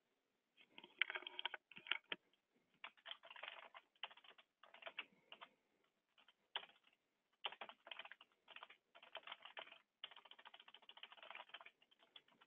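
Faint typing on a computer keyboard: rapid keystrokes in runs of about a second, broken by short pauses.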